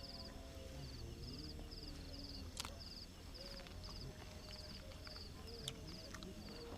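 Insects chirping in a steady repeating pattern, short high-pitched trills about twice a second, over a low rumble, with two sharp clicks, one a little before the middle and one near the end.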